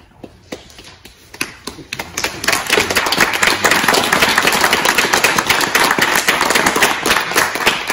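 A small audience applauding: a few scattered claps at first, building about two seconds in to steady applause.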